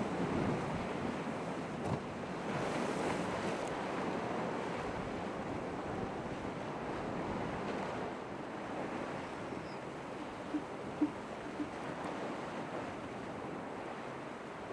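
Ocean surf washing steadily, with some wind noise; three short sharp sounds come close together about two-thirds of the way through.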